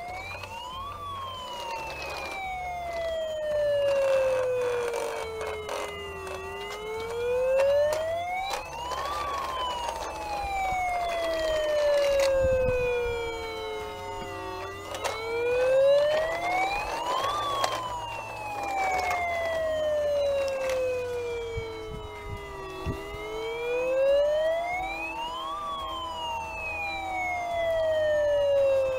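Battery toy fire engine's electronic siren wailing: a slow wail that climbs for two or three seconds, then falls for about five, repeating roughly every eight seconds, four peaks in all.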